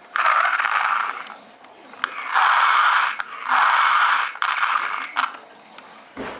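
Mars Attacks Doom Saucer toy playing its electronic sound effects through its small speaker: four harsh, hissy bursts, each about a second long, with short gaps between them. There is a sharp click about two seconds in.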